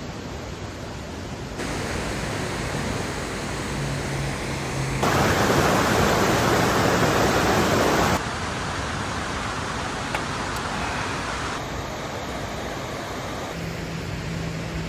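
A rushing mountain stream, a steady wash of water noise that jumps abruptly louder and quieter several times, loudest for about three seconds in the middle.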